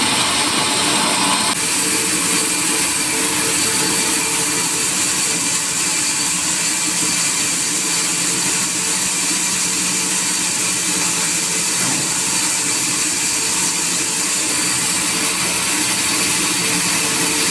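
Sawmill machinery running steadily: a loud, even mechanical noise with a few steady hum tones under it.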